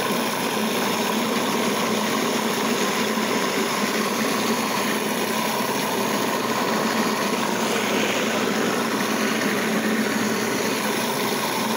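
Electric food processor motor running steadily, its blade churning a jalapeño-lime dipping sauce in the bowl.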